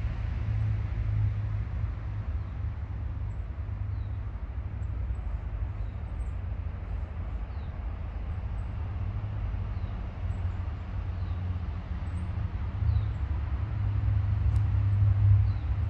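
Steady low outdoor rumble that swells a little near the end, with faint, scattered high chirps of small birds.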